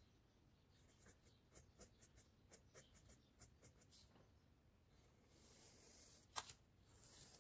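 Faint scratching of a graphite pencil on paper: a run of short quick strokes, then a longer drawn stroke about five and a half seconds in, with a small click just after it.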